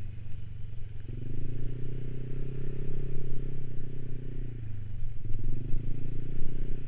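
Yamaha 155 cc single-cylinder scooter engine running under way on a rough dirt lane, its note growing stronger about a second in and easing off near five seconds.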